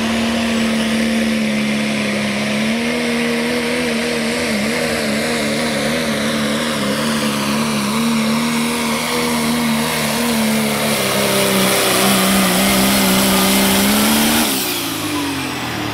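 Dodge Ram diesel pickup pulling a weight-transfer sled at full throttle, its engine note high and steady but wavering under the load. Near the end the note falls away with a dropping whine as the throttle comes off at the end of the pull.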